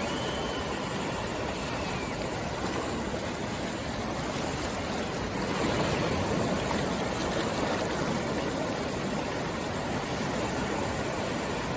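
Sea surf washing in, a steady rush of waves that grows a little louder about six seconds in.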